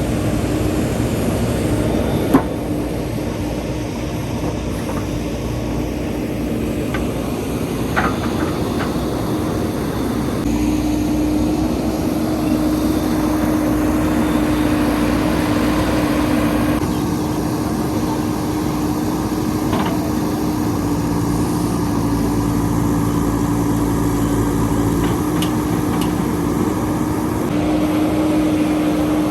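JCB 3DX backhoe loader's diesel engine running steadily, with a few sharp knocks, the loudest about two seconds in.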